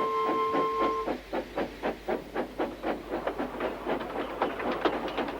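A held music chord ends about a second in. After it, a steam locomotive chuffs along in a quick, even rhythm of puffs.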